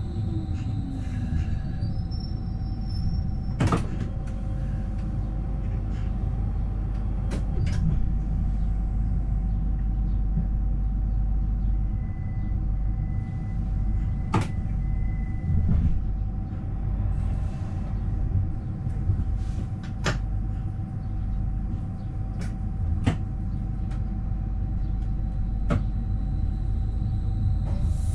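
AVG Stadtbahn tram-train running along the track, heard from the driver's cab: a steady low rumble of wheels on rail with a constant whine, and a sharp click every few seconds.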